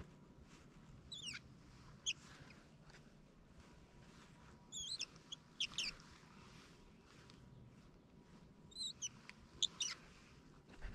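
Fishing reel squeaking as its handle is cranked during a retrieve: short, high squeaks in small clusters, the sign of a dry reel that needs oil.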